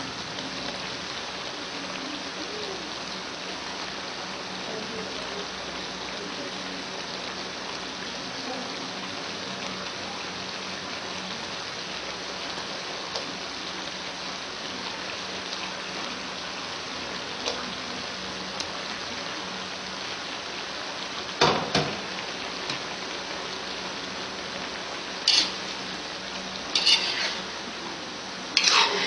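Pork tongue stew sizzling steadily in a metal wok. About twenty seconds in there is one sharp metal knock, and near the end a few clinks and scrapes of a metal spatula against the wok as the fried bananas are stirred in.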